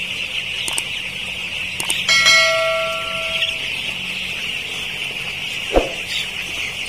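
Dense, steady peeping of a houseful of 12-day-old broiler chicks. About a second in, two clicks of a subscribe-button animation, then a bell-like notification ding that rings and fades over about a second and a half; a short thump near the end.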